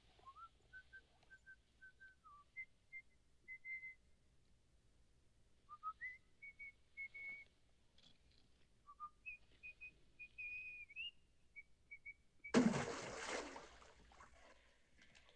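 A man whistling a tune idly, in short, clear notes that rise and fall in phrases. About twelve and a half seconds in, a sudden loud noise cuts in and fades over about a second and a half.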